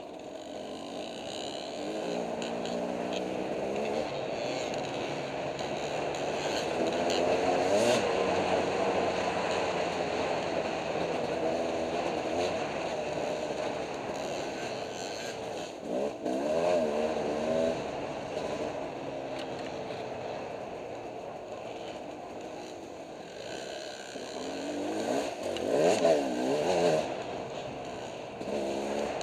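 Two-stroke dirt bike engine heard from on board while riding a trail, repeatedly revving up and dropping back as the throttle is worked, with the loudest surges about eight seconds in and again near the end.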